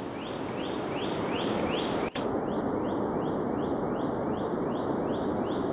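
Forest ambience: a high chirping call, a short rising note repeated about twice a second, over a steady hiss. The sound drops out for an instant about two seconds in.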